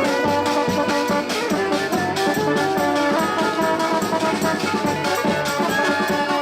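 Street brass band playing, with horns holding notes over percussion that keeps a steady beat.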